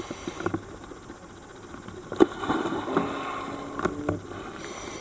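Scattered knocks and clatter over a low steady rumble, with a short steady low tone about three seconds in.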